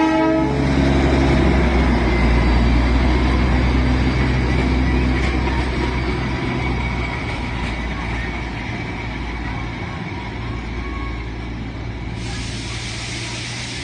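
Train running with a steady low rumble, its horn cutting off about half a second in.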